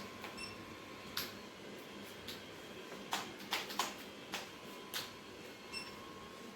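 Scattered light clicks and taps, about seven of them, in a quiet room, with faint short high chirps near the start and near the end.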